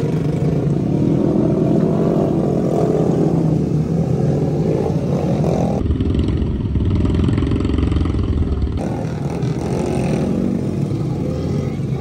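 Motorcycle engine running steadily while riding, muffled for about three seconds in the middle.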